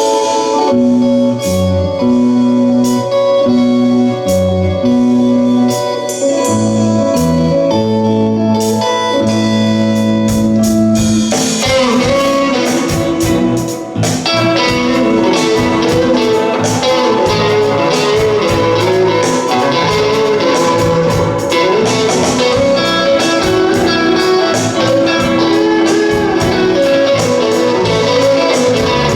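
Rock band playing an instrumental passage led by electric guitar: held bass notes and chords with sparse drum hits, then the full band with drums comes in about 11 seconds in.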